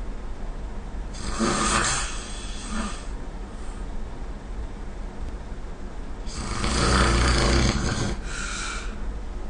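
A sleeping person snoring: a short snore about a second in and a longer, louder one about six seconds in, each followed by a softer breath out.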